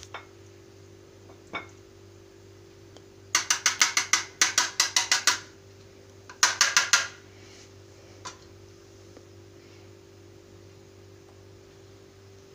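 Cheese being grated on a metal box grater: two bursts of quick rasping strokes, about two seconds of them a little over three seconds in and a shorter burst about a second later.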